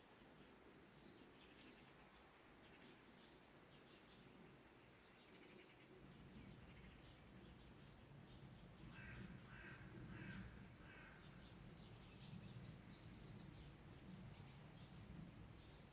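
Forest birds calling and singing, faint: scattered short high chirps and song phrases, with a run of about five lower repeated calls between about 9 and 11 seconds in, over a low steady rumble.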